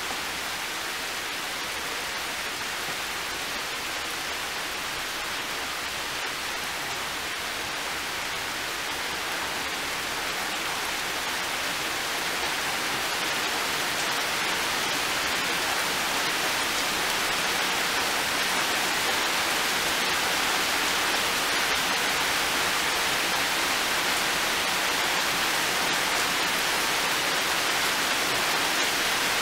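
Heavy rain falling steadily, a dense even hiss with no single drops standing out. It grows a little louder around the middle and then holds steady.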